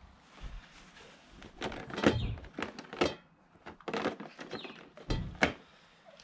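Hand tools knocking and clattering in a plastic tool tray as they are picked through: a string of separate sharp knocks and clunks, loudest about two seconds in and again near the end.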